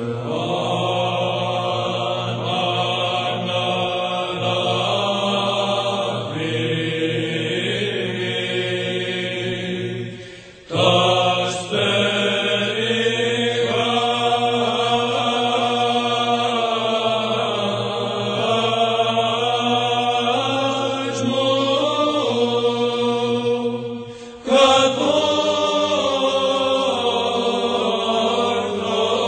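A chanted psalm: a melodic vocal line sung over a steady low held drone, in long phrases broken by short pauses about ten and twenty-four seconds in.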